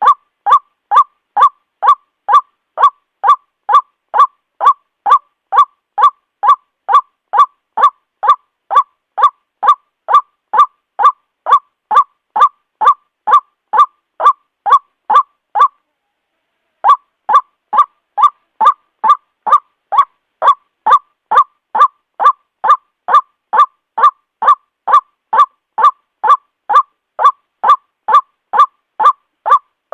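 White-breasted waterhen calling: a steady, loud run of evenly spaced croaking notes, about two a second, broken once by a pause of about a second and a half midway. It is a looped recording of the bird's call, used as a lure for trapping waterhens.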